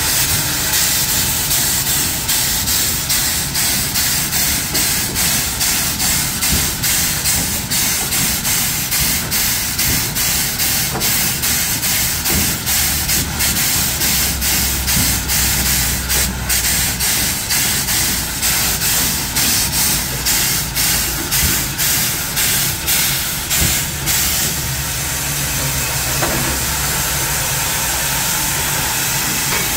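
Steam locomotive venting steam with a loud, steady hiss low down at the firebox end while it is shut down for the night. A regular pulsing, about twice a second, runs over the hiss until it stops near the end, leaving the hiss alone.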